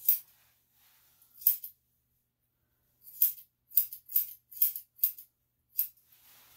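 Grooming shears snipping through a dog's long coat, about eight sharp snips: two spaced apart near the start, then a quicker run of six from about three seconds in.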